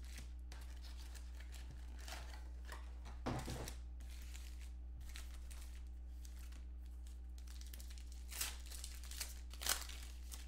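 Foil trading-card pack wrappers crinkling as the packs are handled and torn open: a few short bursts of crinkling and tearing, the sharpest near the end. A steady low hum lies underneath.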